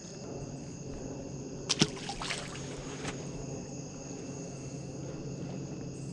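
Steady high chirring of night insects over a low steady hum, with a few sharp clicks and a knock about two seconds in.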